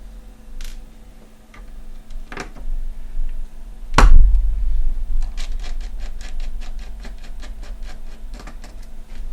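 Screws being taken out of a graphics card's backplate with a small screwdriver: a few light clicks, one sharp knock about four seconds in, then a quick, even run of light clicks, about five a second.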